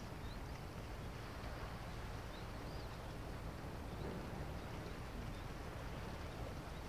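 Steady low outdoor rumble with a faint hiss, and a few faint, short high chirps.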